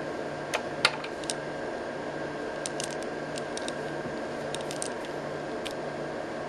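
Sharp clicks and small taps of a homemade oscilloscope probe's parts being handled and taken apart, with a louder click about a second in and a run of lighter clicks after, over a steady equipment hum.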